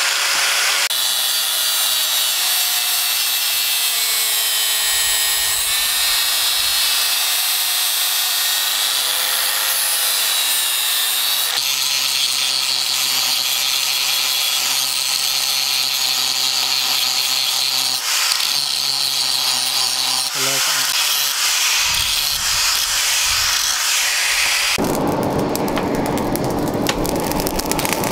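Electric angle grinder grinding the steel of a leaf-spring cleaver blade, a continuous harsh grinding with a whine that wavers in pitch as the disc bears on the metal. Near the end it gives way to a different, lower rushing noise.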